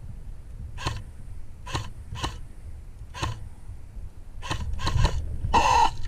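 Airsoft rifle shots: about seven sharp single cracks spaced unevenly, then a short rattle near the end, over a low rumble of wind and movement.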